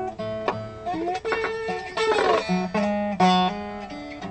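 Gretsch resonator guitar playing a run of plucked notes and chords, with notes ringing on over one another.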